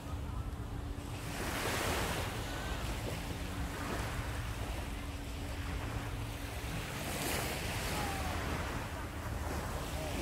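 Surf washing onto a sandy beach, swelling about two seconds in and again around seven seconds, with wind buffeting the microphone.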